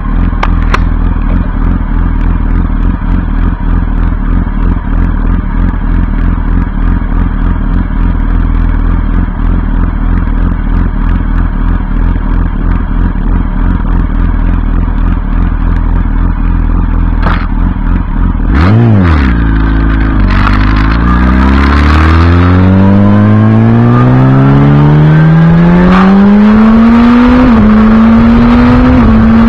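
Yamaha R1 (RN19) 998 cc inline-four with an Akrapovic silencer and no catalytic converter, idling steadily. About two-thirds of the way in the throttle is blipped once, then the bike pulls away with the revs climbing steadily. Near the end there are two short dips in pitch as it shifts up.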